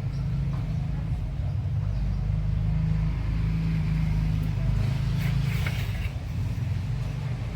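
Motor vehicle engine running with a steady low drone, with a brief patch of higher-pitched rattle or hiss about five seconds in.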